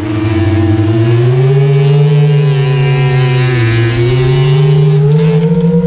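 A racing vehicle's engine running loud and close, its revs rising and falling as it is driven: a dip right at the start, a climb over about two seconds, an easing off, then a climb again near the end.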